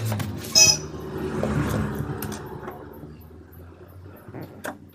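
Hands handling packaging: a plastic courier mailer rustling while a cardboard phone box is pulled out and its lid opened. There are scattered taps and clicks, and a sharp scrape about half a second in.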